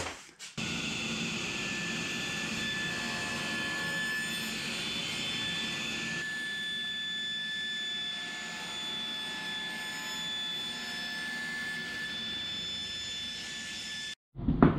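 Table saw running with a steady whine while it crosscuts the end off a curved oak arch piece. The sound shifts about six seconds in and cuts off abruptly near the end.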